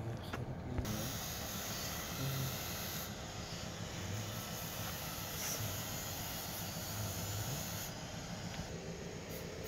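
A steady rushing hiss. It starts with a short knock about a second in and eases near the end.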